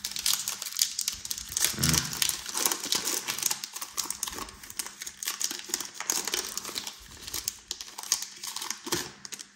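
Crinkling of a foil-plastic trading-card pack wrapper being handled and torn open: a dense, irregular run of crackles that stops near the end.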